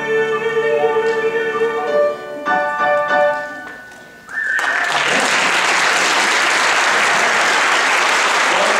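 Closing chords of a song played on a grand piano, dying away about four seconds in. An audience then starts applauding loudly and keeps on steadily.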